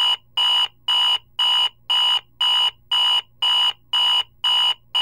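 Digital alarm clock beeping: a steady, high-pitched electronic beep repeating about twice a second, each beep short with a short gap between.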